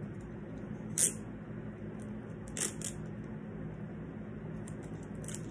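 Sticky tape being pulled and torn for hanging a poster: a short sharp rip about a second in and a softer one a second and a half later, over a steady low hum.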